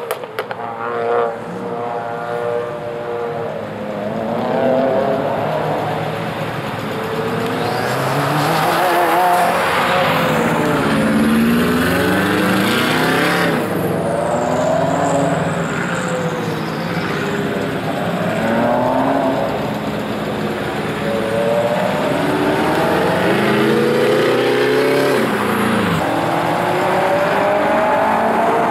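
Car engine revving up and easing off over and over, its pitch climbing and falling every two to three seconds, as the car accelerates and slows through an autocross course.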